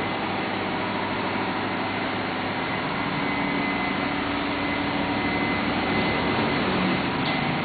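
Steady drone of running machinery, with a few constant held tones and no change in level.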